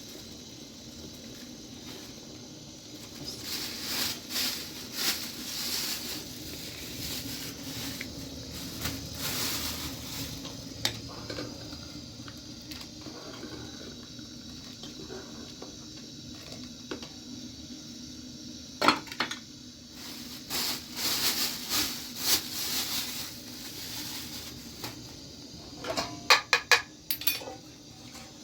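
Irregular handling noises: scraping and rustling in bursts, with a sharp knock about two-thirds through and a quick run of clicks near the end, over a low steady hum.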